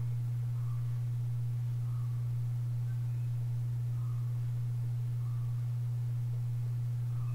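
A steady, unchanging low-pitched hum.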